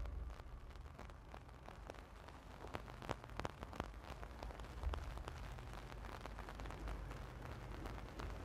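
Faint crackling of a small fire of burning book pages: scattered, irregular pops and clicks over a low, steady rumble.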